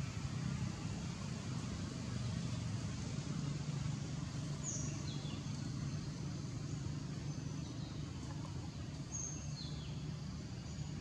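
Steady low outdoor rumble throughout. Over it, two short high bird calls, about halfway and near the end, each a brief high note followed by a quick downward sweep.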